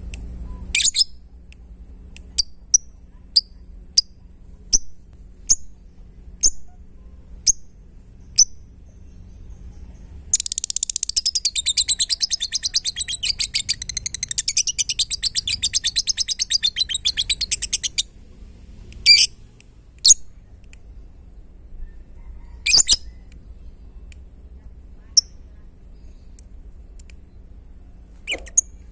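Lovebird calling. Sharp single chirps come at an even pace, then a fast, even run of rapid clicking chirps lasts about eight seconds, followed by a few louder separate chirps. The fast run is the lovebird's 'ngetik' (typing) song, played to provoke other lovebirds into calling back.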